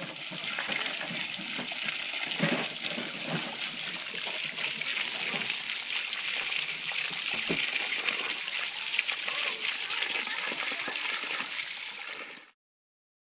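Water from an outdoor spigot running steadily and splashing over hands and into a metal bowl as produce is rinsed, with a few soft knocks in the bowl.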